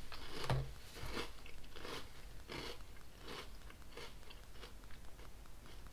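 Close-up chewing of a mouthful of Cap'n Crunch Halloween Crunch cereal in milk: a steady run of crisp crunches, about two or three a second, very crunchy.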